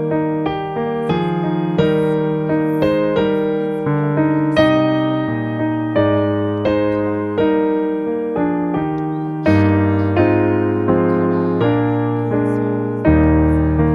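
Background music: a gentle piano piece, notes and chords struck at an even pace, each fading before the next.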